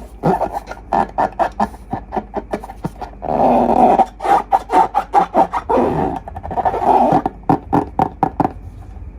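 Slime being squeezed and squished: a quick run of short wet pops and clicks, with two longer squelching bursts about three and six seconds in.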